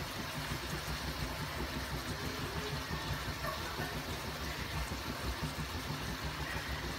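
Meat and a whole fish frying in oil in a steel wok: a steady sizzle over a constant low rumble.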